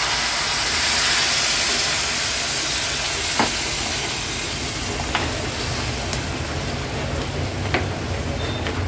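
Water poured into a hot pan of fried masala and crabs sizzles and hisses, loudest at first and slowly dying down. A spoon clinks against the pan a few times as the curry is stirred.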